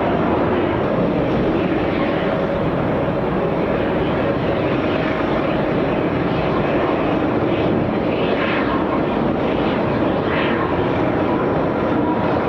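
An American Airlines Boeing 737-800's CFM56 jet engines running steadily as it arrives to land on runway 26R.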